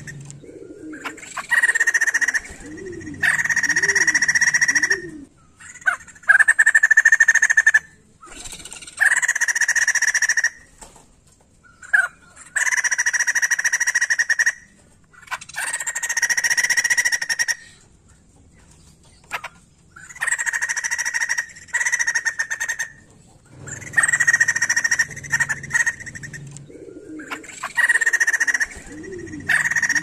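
White-crested laughingthrush (poksay jambul) calling in about a dozen loud, buzzy chattering bursts, each a second or two long, with short quiet gaps between them.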